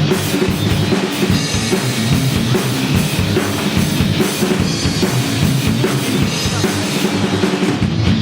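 Live rock band playing an instrumental passage: drum kit with bass drum driving a steady beat under distorted electric guitar and bass, loud and continuous.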